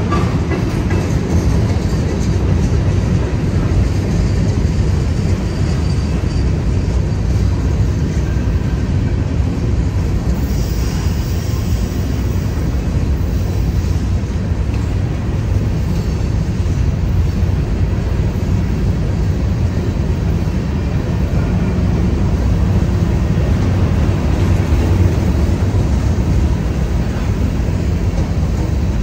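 Freight train's covered hopper cars and boxcars rolling past close by: a loud, steady low rumble of steel wheels on rail.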